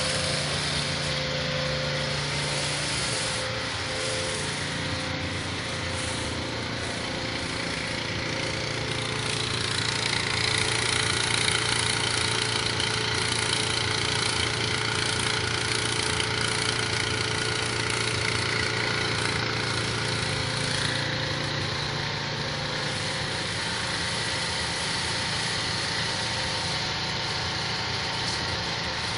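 Hot-water pressure washer running steadily, its spray hissing out under a rotary surface cleaner pushed across concrete, over a constant low hum.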